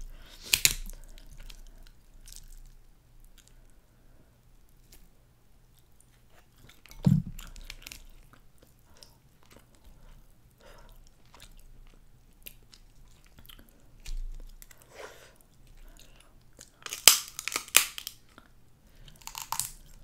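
Cooked snow crab leg shells cracked and snapped apart by hand, with chewing between. Sharp cracks come near the start and in a quick cluster near the end, with one duller knock about seven seconds in.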